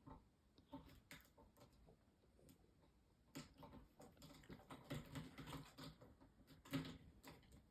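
Faint, irregular light taps and soft rustling, busier in the second half, with the loudest tap near the end.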